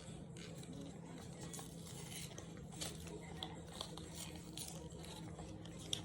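Faint rustling and light clicks of cardboard and plastic packaging being handled, with a sharper click near the end, over a steady low hum.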